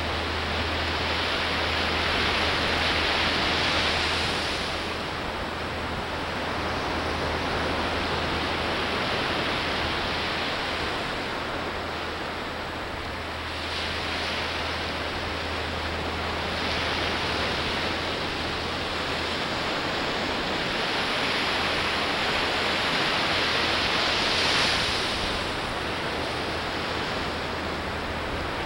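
Ocean surf breaking on a sandy beach: a steady wash of surf that swells and eases every several seconds as the waves come in.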